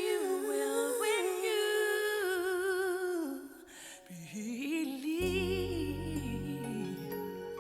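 Background music: a ballad with a sung melody line, notes held with vibrato, and low accompaniment coming in about five seconds in.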